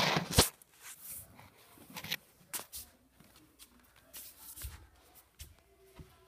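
Movement noise: a loud scuff and a sharp knock at the very start, then scattered taps, clicks and short rustles of footsteps and shuffling as someone follows a cat across wooden floor and rugs.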